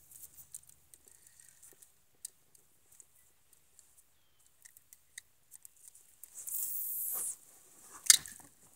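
Handling noise: scattered small clicks and rustles, a short hiss about six and a half seconds in, and a sharp knock near the end.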